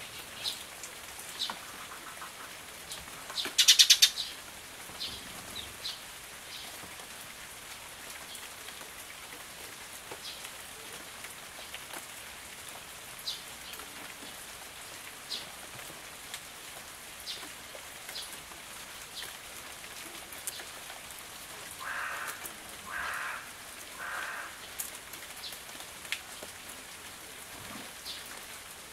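Steady patter of rain with Eurasian tree sparrows chirping now and then. A loud, brief burst about four seconds in, and three short, duller bursts late on.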